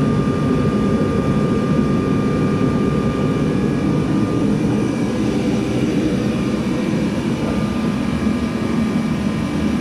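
Protemp diesel space heater running steadily: a loud fan-and-burner rush with a thin, steady whine above it. The burner is firing with the air-pump pressure turned well down, because at full setting it blows too much air.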